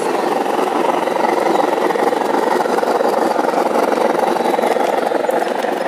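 Large-scale G gauge model steam locomotive and train running along the track close by, giving a steady, even running noise of motor and wheels.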